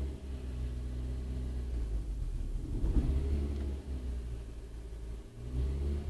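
Renault Clio Mk 3 petrol engine idling steadily and smoothly, with no misfire now that water has been cleared from its cylinder 2 pencil-coil well.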